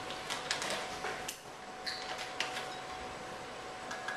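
Faint rustling of a plastic bag of baking powder and scattered light clicks of a plastic measuring spoon as a half teaspoon is scooped out, over a faint steady hum.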